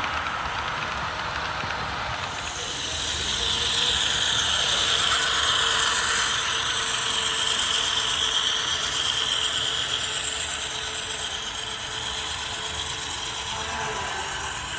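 A model train rolling past on the layout track: a steady mechanical rattle and whir of wheels and gearing that swells about two seconds in, is loudest through the middle, and eases off near the end.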